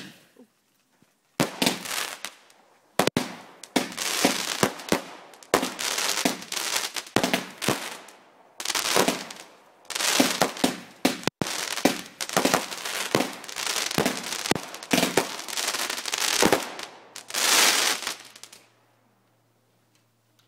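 Fireworks going off in quick succession: sharp bangs mixed with long stretches of crackling hiss, dying away near the end.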